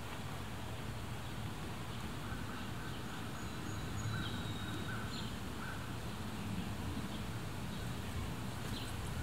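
Backyard ambience: a steady low rumble with a bird calling faintly a few times between about two and six seconds in.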